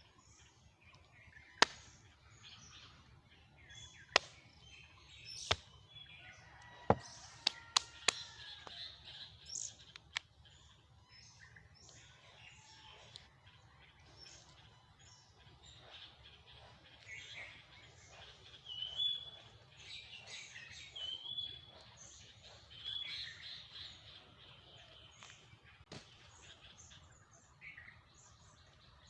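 Sharp knocks of unripe velvet apples (mabolo) being cracked open with something hard to free the seeds, several in the first ten seconds and one more near the end. Birds chirp in the background.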